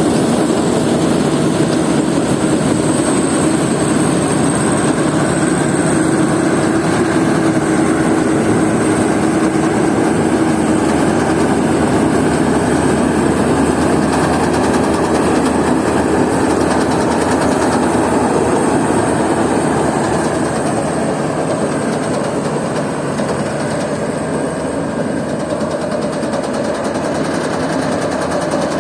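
Rice combine harvester running steadily, a loud continuous mechanical drone of engine and threshing machinery, easing off slightly about two-thirds of the way through.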